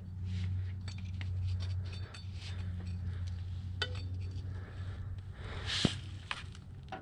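Scattered light metallic clinks and taps of hands and tools working on an engine's timing belt and cam sprockets, the sharpest click about four seconds in, over a steady low hum.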